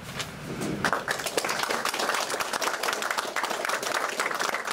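Audience applauding, the clapping swelling and growing denser about a second in.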